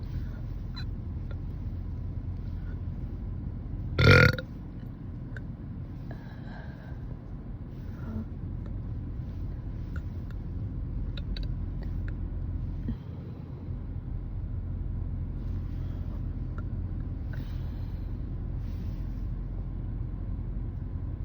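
A woman burps once, loudly, about four seconds in, a short belch of about half a second over a steady low background rumble.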